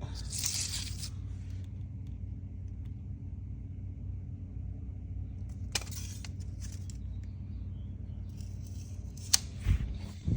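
Light metallic rattles and clicks from handling a removed metal head gasket, in bursts about half a second in, around six seconds and near the end, over a steady low hum.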